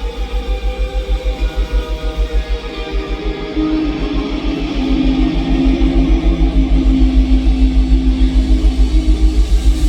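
Live band playing a song intro: sustained electric guitar notes over a fast, steady pulse in the low bass, swelling louder about four seconds in.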